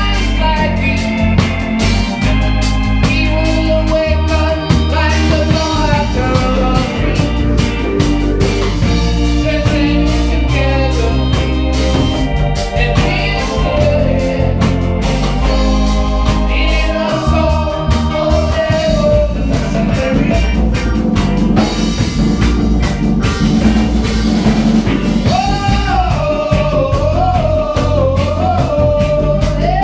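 A band playing a reggae-funk song, with organ over heavy bass and steady drums, and a wavering melody line coming in strongly near the end.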